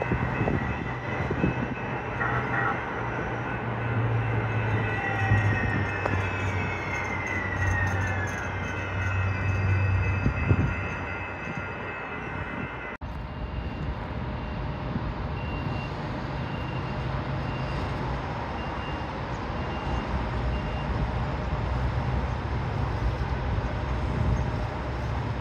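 San Diego Trolley light-rail cars running on electric traction: a low hum with a steady high whine, several whine tones sliding down in pitch in the first half. About halfway through the sound cuts to a steadier hum, whose high tone stops near the end.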